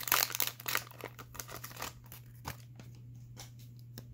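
Foil Pokémon booster pack wrapper crinkling as it is handled with the cards, dense for the first two seconds and then thinning to a few light rustles and clicks.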